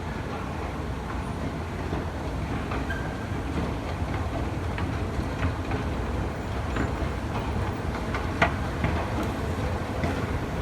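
Steady low rumble in an enclosed pedestrian skywalk, with faint irregular clicks of footsteps and one sharper click near the end.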